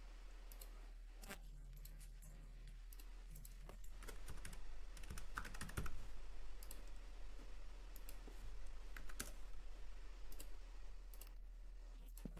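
Computer keyboard typing and clicking: a scattered run of light key taps, busiest through the middle.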